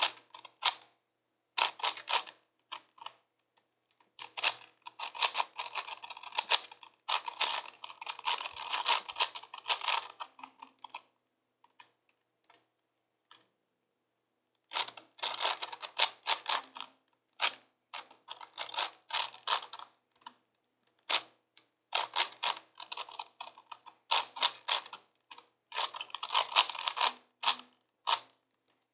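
5x5x5 Rubik's cube being turned by hand: quick runs of plastic clicks as its layers are twisted, in bursts, with a pause of about three seconds near the middle.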